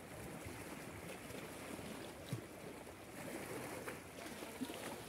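Small waves washing over shoreline rocks: a faint, steady wash of sea water with a couple of small knocks.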